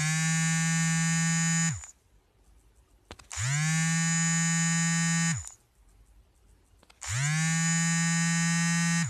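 LG K7 smartphone's vibration motor buzzing in three long pulses of about two seconds each, about a second and a half apart: one of the phone's vibration patterns. Each buzz rises in pitch as the motor spins up and sags as it stops.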